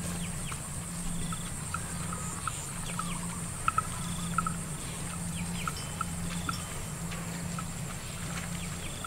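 Outdoor field ambience: scattered short, high chirping calls from small animals, over a steady low hum.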